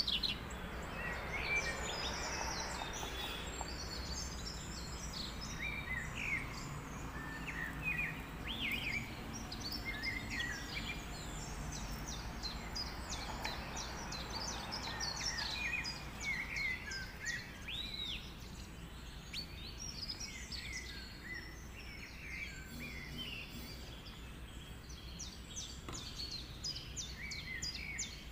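Small birds chirping and twittering, many short high notes and quick glides throughout, over a steady low background hum.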